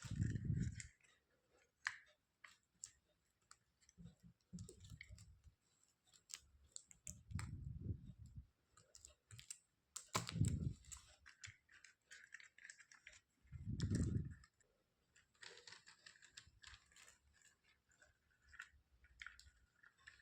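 Close, quiet handling of toys and their packaging: scattered small clicks and taps, brief scratchy rustles, and several soft low thumps as things are set down or bumped.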